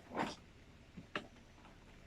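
A few short clicks and a brief soft rustle from objects being handled, with quiet room tone between.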